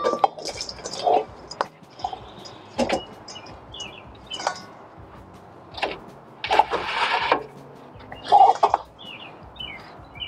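Chicken wings being tossed in a bowl of buffalo sauce: irregular wet slaps and clatters, with birds chirping in the background.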